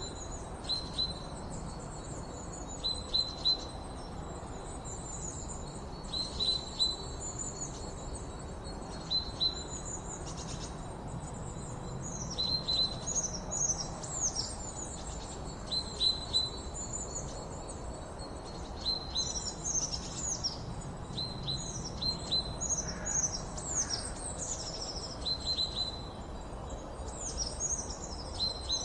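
Several small birds chirping and singing: clusters of short repeated chirps and quick downward-sweeping high notes, coming thickly through, over a steady background hiss.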